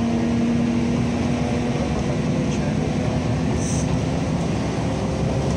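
Steady engine and road rumble heard from inside a moving vehicle, with a low engine hum that fades out about halfway through.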